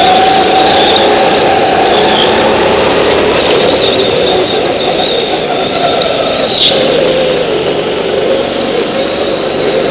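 Go-kart engine running steadily at speed, with a short, sharp tyre squeal about two-thirds of the way in.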